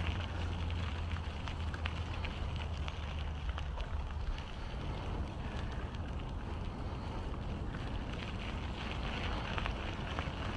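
Wind buffeting the microphone of a camera riding along on a moving bicycle: a steady low rumble with a higher hiss, and scattered faint clicks and rattles.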